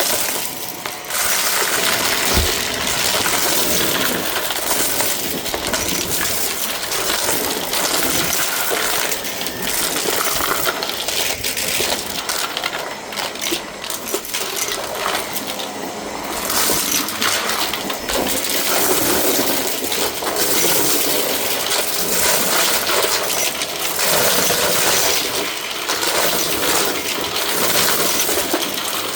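Shark vacuum cleaner running steadily and loudly, with a dense crackling rattle of grit and debris being sucked up through it.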